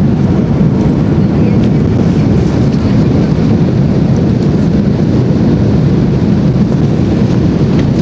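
Airbus A350 cabin noise during takeoff: a loud, steady, deep rumble from the Rolls-Royce Trent XWB engines and rushing air, with no change in pitch.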